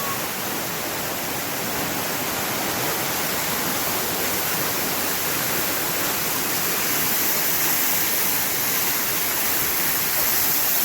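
Water of a creek waterfall rushing steadily, an even unbroken noise of falling water.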